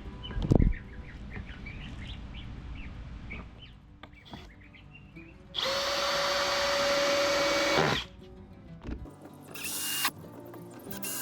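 Milwaukee cordless drill running at a steady speed for about two seconds, then winding down as the trigger is released. Birds chirp faintly before it.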